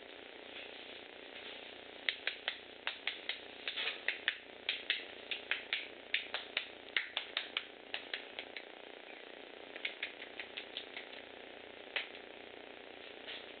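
Sharp clicks or snaps in quick, irregular runs of about three to four a second, with a shorter run later and a single click near the end.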